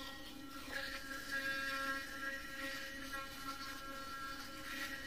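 usmile Y1S sonic electric toothbrush running in Clean mode while brushing teeth: a quiet, steady hum.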